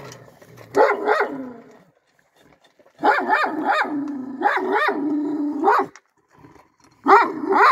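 Alabai (Central Asian Shepherd) puppies barking and yelping in three bouts of short calls that rise and fall in pitch, the longest bout in the middle.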